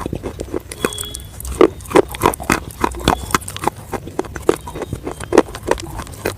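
Chicken nuggets being chewed close to the microphone: a quick, irregular run of crunches and mouth sounds, several a second.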